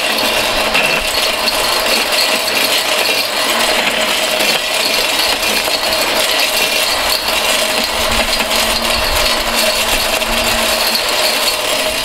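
Mighty Mill hammer-mill ore crusher, driven by a handheld electric drill, running hard while its hammers shred USB connectors. A dense metallic rattling and clattering runs over a steady motor tone.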